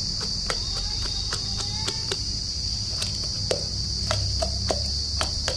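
Wooden rolling pin pounding ginger, garlic and green chillies in a steel glass, irregular knocks about three a second. A steady high insect drone runs underneath.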